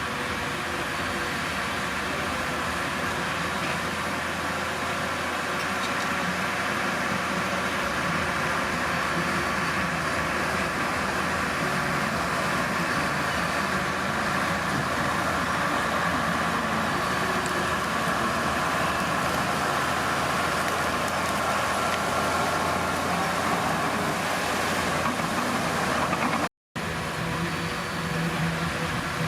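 Diesel engine of a Komatsu D31P bulldozer running steadily, with a brief drop to silence near the end.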